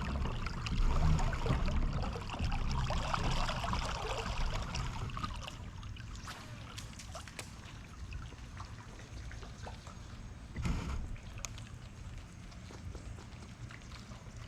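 Water trickling and dripping close by a kayak, louder for the first few seconds and then fading, with scattered light clicks and one soft thump about ten and a half seconds in.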